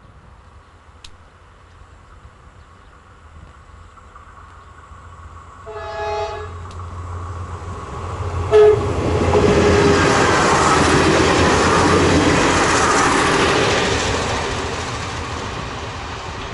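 Renfe Cercanías electric commuter train sounding its horn, one blast about six seconds in and a shorter one near nine seconds, then passing close with wheels clattering over the rails, the noise swelling and slowly fading as it runs away.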